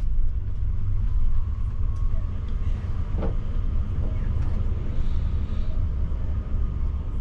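Tour coach's engine running with a low, steady rumble, heard from inside the coach.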